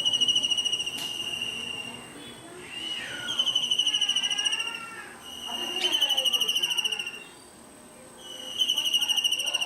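Kingfisher calling: four long, fast rattling trills, each lasting one to two seconds with short gaps between. A thin, steady high whine runs underneath.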